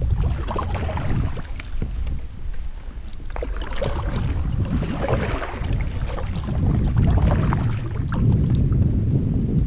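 Kayak paddle dipping into the water, splashing and dripping with scattered small clicks, over a steady low wind rumble on the head-mounted GoPro's microphone.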